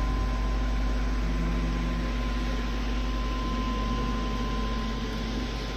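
OMTech 60 W CO2 laser cutter running idle just after being switched on: a steady hum and fan-like hiss with a thin, high, steady whine.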